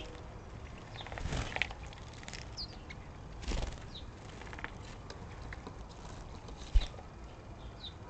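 Birds splashing and fluttering their wings in a bird bath, in short bursts about a second in and again about three and a half seconds in, with a few brief high chirps. A single sharp knock comes near the end.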